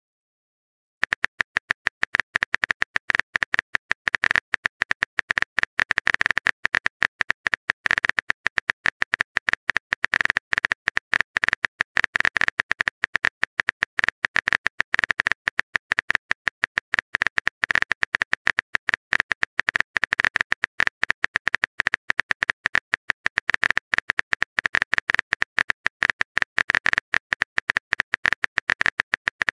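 Rapid keyboard-typing clicks from a simulated phone keyboard, starting about a second in and going on as a message is typed out letter by letter.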